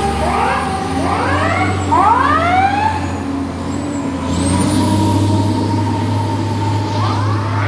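Fire truck sirens sounding in a run of quick rising yelps for about three seconds, and again near the end, over the steady low running of the rigs' diesel engines as they pull away.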